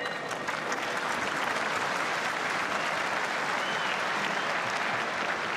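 Large arena crowd applauding at the end of a boxing round: a steady wash of clapping.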